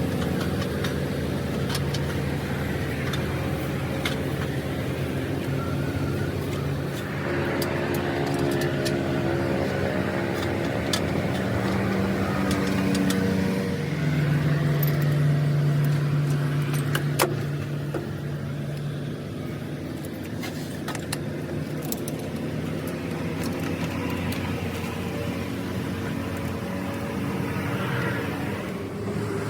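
Motor vehicle engines running, their pitch shifting at times and loudest for a few seconds about halfway through, with scattered sharp metal clinks.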